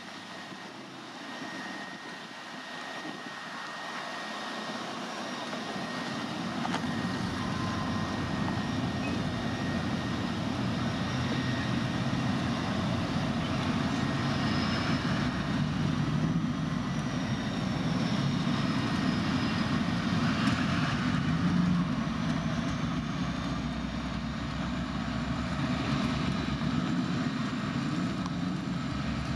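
Diesel-electric freight locomotives running under power as they approach, a low engine rumble that grows louder over the first ten seconds or so and then holds steady.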